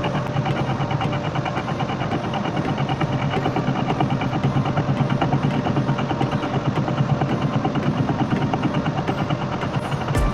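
Metal lathe running: a steady hum with fast, even pulsing.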